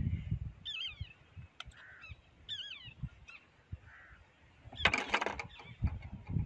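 A bird giving short, wavering calls, two or three in the first three seconds, with a brief burst of rustling about five seconds in.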